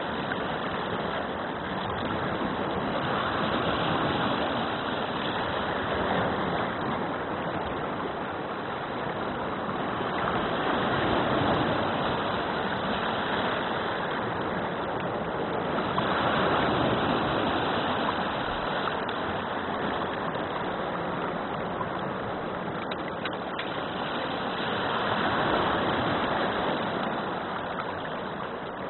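Shallow water running over pebbles and rocks: a steady rushing and trickling that swells and eases several times.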